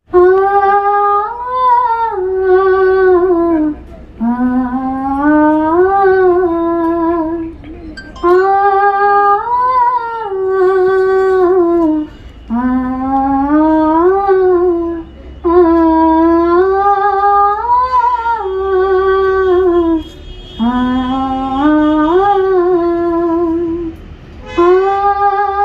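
A solo high voice singing a Dogri folk song melody in long held, gently wavering notes. The phrases last about three to four seconds, with short breaks between them.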